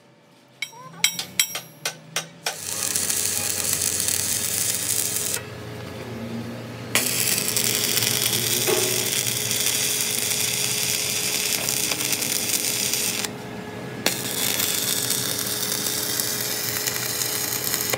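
A few sharp metal clinks and knocks, then a power tool running steadily with a hiss, dropping away briefly twice, about five seconds in and about thirteen seconds in.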